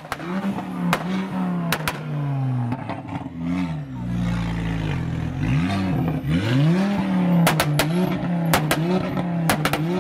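A Mk2 Ford Focus ST's turbocharged five-cylinder engine revving up and down repeatedly as the car pulls away, with sharp exhaust pops and bangs about a second in and a string of them in the second half.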